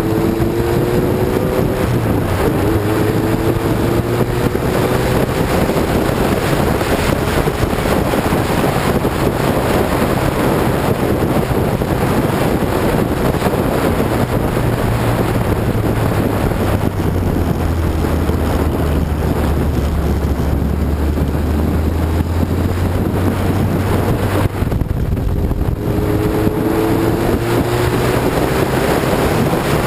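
Lotus 61 Formula Ford's engine under power, heard on board: the revs climb, drop at a shift about two seconds in and climb again, then climb once more near the end. Wind buffets the microphone throughout.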